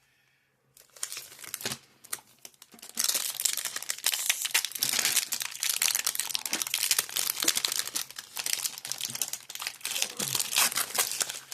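Foil wrapper of a Pokémon card booster pack being handled and torn open, crinkling in a few short bits at first, then crackling continuously from about three seconds in.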